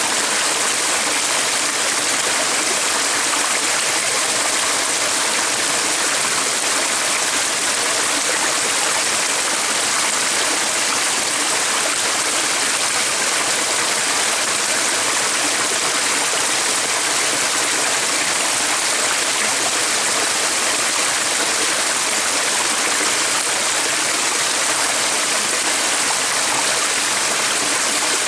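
Running water of a stream, a steady, even rush with no breaks.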